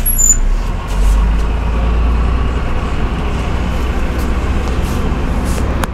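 Cabin noise of a MAZ-105 articulated city bus: a steady low diesel engine rumble that swells about a second in and holds.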